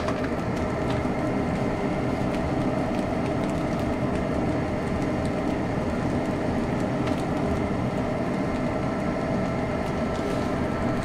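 Fried rice sizzling in a hot frying pan: an even, steady frying noise over a constant hum, with a few faint ticks.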